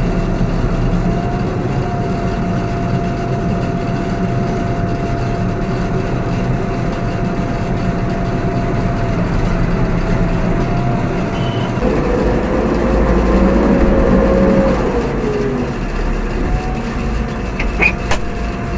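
JCB backhoe loader's diesel engine running steadily, heard from the cab, with a steady high tone over it. About twelve seconds in, the engine gets louder and deeper for a few seconds with a wavering tone, then settles back. A couple of sharp clicks come near the end.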